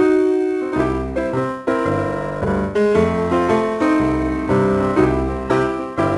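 Background music: a piano or electric keyboard tune over a steady bass line, starting suddenly out of silence.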